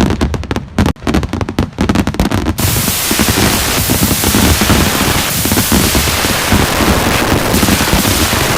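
Fireworks display: rapid popping and crackling for the first couple of seconds, then abruptly a dense, unbroken crackle that runs together into a loud hiss.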